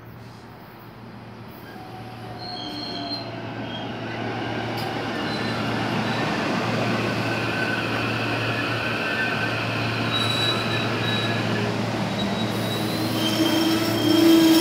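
Three-car SEPTA Silverliner V electric commuter train pulling into a station, growing steadily louder as it comes close and passes, with several high squealing tones as it slows.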